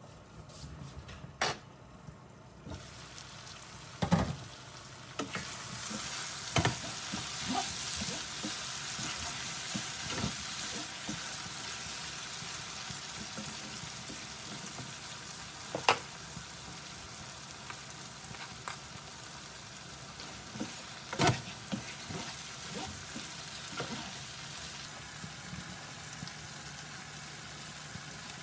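Food sizzling as it fries in a pan, with a spatula stirring it and knocking now and then against the pan. The sizzling starts about three seconds in, is loudest for a few seconds, then settles to a steady level.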